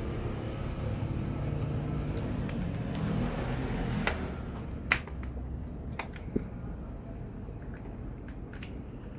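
Low, steady rumble for the first four seconds, then a handful of sharp plastic clicks and snaps as the clips of a Lenovo V15 laptop's plastic bottom cover are pried with a flat-blade screwdriver.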